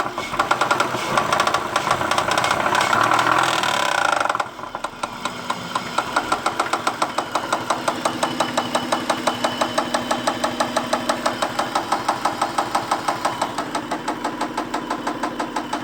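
2001 Acura engine running with a rhythmic ticking noise. It runs louder and faster at first, then drops back to idle about four and a half seconds in, leaving a steady tick about six times a second.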